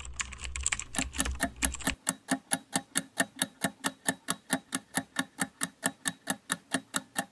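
Countdown-timer ticking sound effect: sharp, even ticks, about five a second. For the first two seconds the ticks are mixed with a dense run of rapid clicks over a low rumble.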